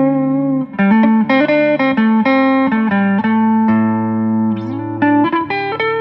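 Background music: a guitar playing a melody of separate plucked notes, with one note sliding up in pitch near the end.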